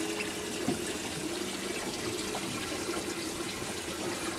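Sea water washing and splashing against a boat's hull, with a steady low hum underneath and a light knock a little under a second in.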